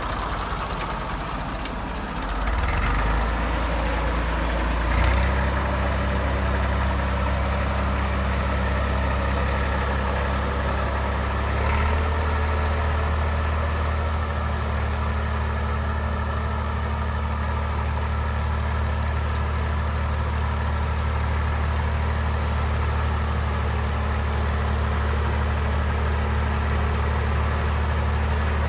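IMT 542 tractor's diesel engine running steadily, its note shifting a few times in the first twelve seconds and then holding even.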